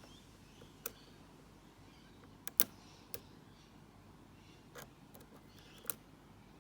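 Irregular sharp clicks, about six, from a lock pick setting and dropping the serrated security pins inside a Mako padlock held under tension; the loudest comes about two and a half seconds in.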